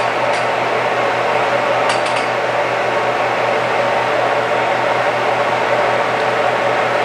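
Steady fan-like drone with a low hum underneath from a powered-up CNC lathe standing with its spindle stopped. A few light clicks come about two seconds in.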